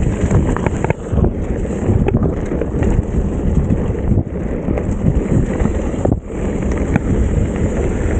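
Heavy wind buffeting an Insta360 camera's microphone on a fast mountain-bike ride, with scattered knocks and rattles from the bike running over rough trail.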